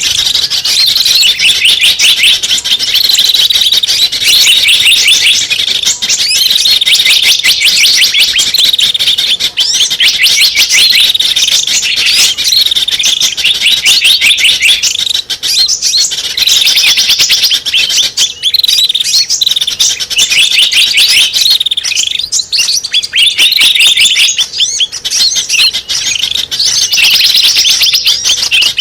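Small-bird lure call (suara pikat): dense, rapid high-pitched chirping and twittering, with a short falling whistle repeating about every two seconds, meant to draw small birds in.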